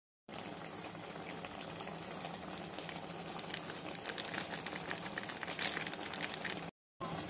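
Chicken curry simmering in a pot: a steady bubbling hiss with many small pops, broken by a brief silent gap near the end.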